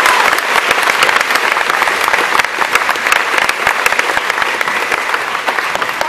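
A large crowd applauding: dense clapping from many hands that eases slightly toward the end.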